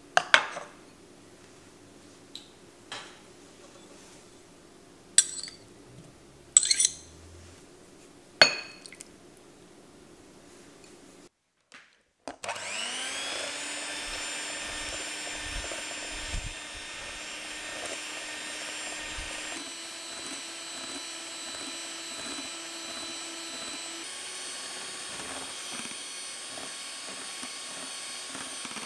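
A glass bowl set into a stainless steel pan, giving a few sharp clinks in the first several seconds. Then, after a brief silence, an electric mixer spins up with a rising whine and runs steadily at medium-high speed, beating eggs and sugar.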